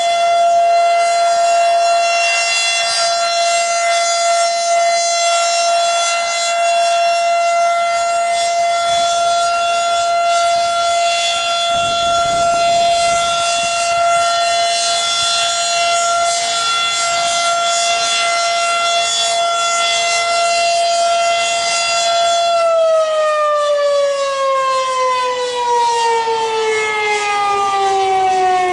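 Federal Signal 2001-SRN/DC electromechanical warning siren sounding a loud, steady single tone during its test, then, about 22 seconds in, winding down with a slowly falling pitch as it shuts off and the rotor coasts down.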